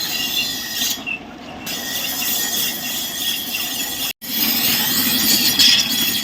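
A knife blade being ground on a sharpener's grinding stone: a continuous high, hissing squeal of steel scraping on stone, which thins for a moment about a second in and cuts out abruptly just after four seconds.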